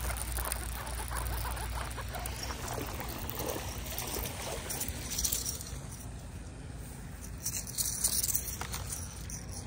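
Baitcasting reel being cranked to retrieve a jig and a hooked bass, with faint clicks and handling rustles, over a steady low wind rumble on the microphone. A couple of brief splashy bursts come about halfway and again near the end as the fish is drawn to the bank.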